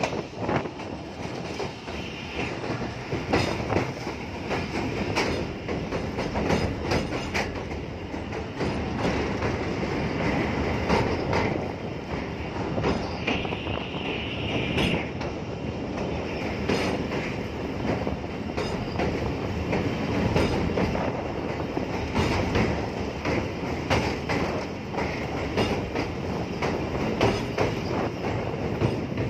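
Wheels of a moving passenger train rolling over the rails of a steel girder bridge: a steady rumble with irregular clicks and clacks, and a brief high-pitched wheel squeal about halfway through.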